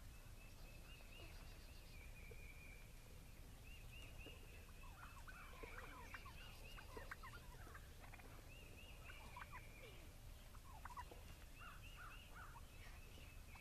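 Wild turkey toms gobbling faintly in several short bouts, most of them in the middle of the stretch.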